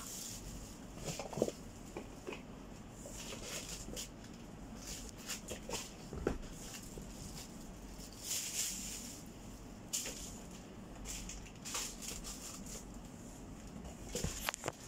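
Items being packed into a cardboard box: rustling swishes of plastic bags and clothing, with scattered light knocks and taps against the box.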